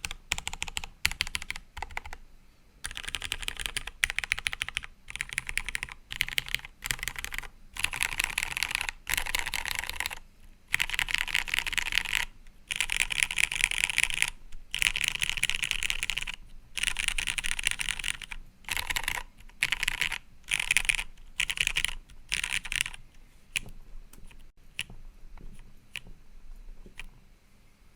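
Typing on a custom Matrix 1.2OG mechanical keyboard with lubed Retooled Cherry MX Black linear switches on a top-mounted aluminium plate and CRP Tulip keycaps. Fast bursts of keystrokes come with short pauses between them, thinning to scattered single key presses near the end.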